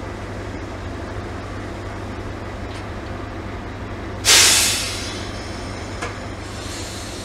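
Steady low drone of an idling M62 diesel locomotive. About four seconds in comes a sudden loud burst of compressed air hissing that fades over about a second, followed by a short click: air from the brake line as the locomotive is coupled to its train.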